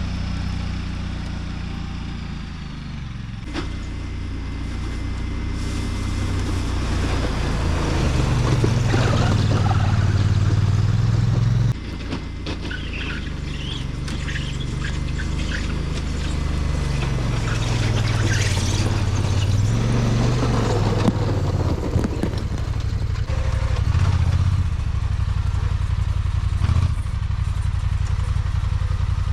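Engine of a small snowplow vehicle working hard, its pitch and loudness rising and falling as it pushes wet snow. A rough scraping hiss of blade and snow runs through the louder pushes, and the sound drops suddenly about twelve seconds in.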